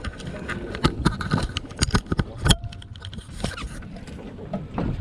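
Irregular knocks, clatter and scrapes on a fishing boat, with one sharp thump about halfway through.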